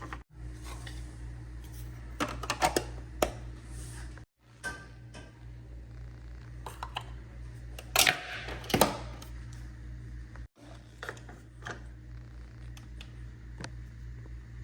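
Clicks and clatter of a Nespresso coffee machine's plastic parts being handled, with the loudest knocks about two to three seconds in and again around eight to nine seconds, over a steady low hum.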